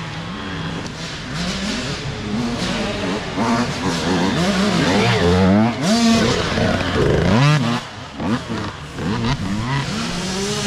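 Several youth dirt bike engines revving up and down, overlapping, as riders pass one after another, their pitch rising and falling with throttle and gear changes.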